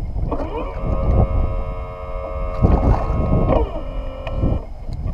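Electric trolling motor whining: the whine rises in pitch as it speeds up, holds steady, drops lower about three and a half seconds in, and stops shortly after. Wind noise on the microphone and water lapping against the hull run underneath.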